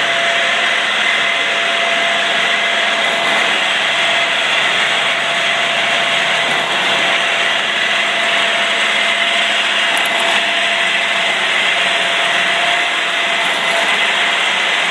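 1996 Davenport extended-bed multi-spindle automatic screw machine running: a loud, steady mechanical noise with constant whining tones through it.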